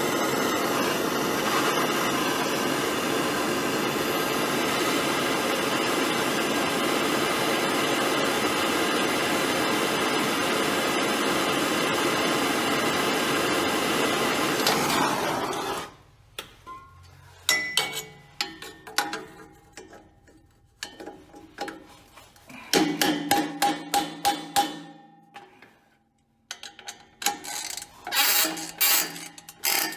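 A handheld gas torch hisses steadily as it heats the rusted exhaust pipe at an O2 sensor, then cuts off suddenly about halfway through. After that, a ratchet wrench clicks in several short bursts of rapid clicks.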